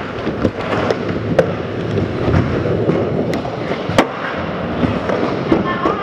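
Skateboard wheels rolling on a concrete floor, a steady rumble, with sharp clacks about a second and a half in and again at four seconds.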